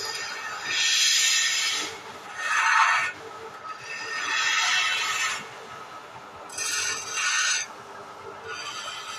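Hand-held chisel cutting wood spinning on a vertical wood lathe. Four rasping, scraping cuts of a second or so each, over the steady hum of the lathe running.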